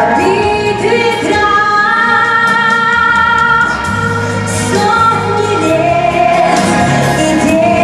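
Music: a song with a woman's voice singing long held notes over instrumental backing and a steady bass.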